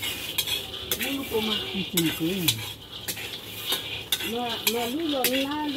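Metal ladle scraping and stirring beans dry-roasting in a wok, with many short clinks and scrapes. A wavering call with rising and falling pitch is heard briefly near the middle and again from about four seconds in.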